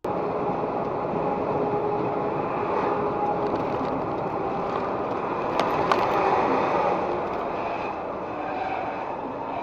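Steady engine and road noise heard inside a truck cab moving at highway speed, with a faint even hum. Two short clicks just after the middle.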